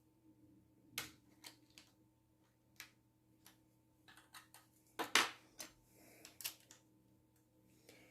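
Plastic Lego pieces clicking and tapping irregularly as they are handled, with the loudest clicks about five seconds in.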